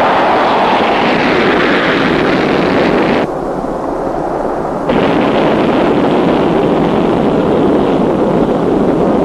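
Jet roar of a KC-135A's Pratt & Whitney J57 turbojets at high power, a steady rushing noise. From about three seconds in, it turns duller and quieter for a second and a half, as heard inside the cockpit, then returns at full strength.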